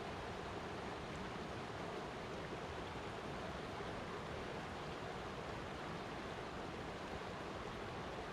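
Flowing water, a steady, even sound without breaks or separate splashes.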